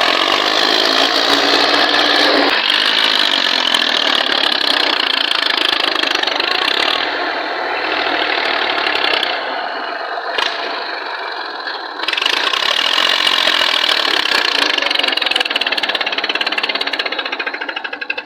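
Massey Ferguson 240 tractor's diesel engine running under load as it pushes a trailer backwards, the revs shifting up and down in the first couple of seconds. The engine eases off about ten seconds in and picks up again about two seconds later.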